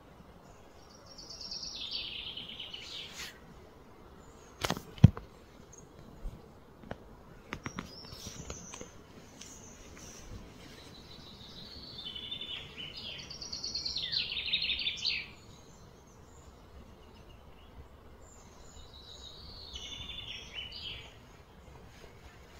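A songbird singing four phrases of high trilling notes that fall in pitch, each one to three seconds long. A single sharp knock about five seconds in is the loudest sound, followed by a few fainter clicks.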